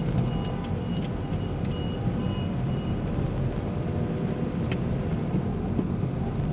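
Steady engine and road rumble heard inside a moving 2009 Corsa's cabin. Over it, for the first three seconds, a run of short high beeps about three a second, some random beeping of unknown origin.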